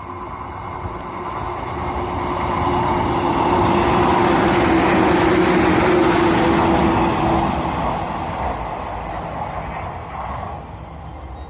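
JR Shikoku 113 series electric train, with MT54 traction motors, passing by. Its noise builds to a peak about halfway through and then fades away, with a steady tone under it that stops about two thirds of the way in.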